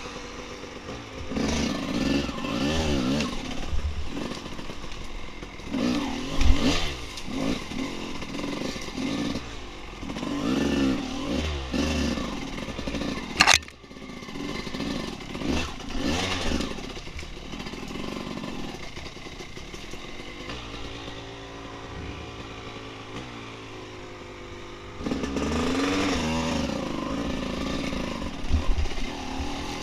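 Dirt bike engine revving up and down repeatedly as the bike rides a trail. About halfway there is a single sharp knock, and later a stretch of steadier running at lower revs before the revs climb again near the end.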